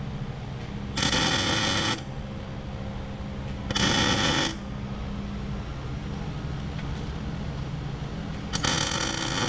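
MIG welder arc making three short tack welds, each about a second of crackling sizzle, the last near the end, over a steady low hum. The tacks join a nut to a snapped exhaust manifold bolt stub so the bolt can be turned out.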